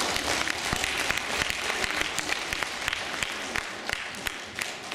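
Audience applauding, many hands clapping together, thinning to scattered single claps near the end.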